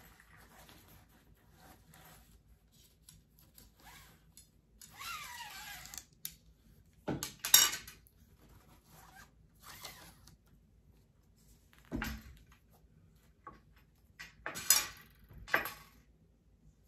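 A fly rod's sections being slid out of their carrying tube and handled. There is a scraping slide about five seconds in, then a few sharp knocks and clatters as the sections and the tube are set down on the table, the loudest about halfway through.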